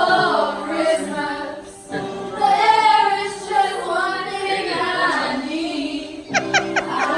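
Recorded music with voices singing in a choir-like blend, playing steadily. A few quick sharp strokes cut in near the end.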